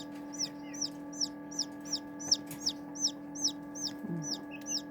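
Newly hatched Serama chick peeping steadily: a regular run of short, high-pitched peeps, each rising and then falling, about two and a half a second.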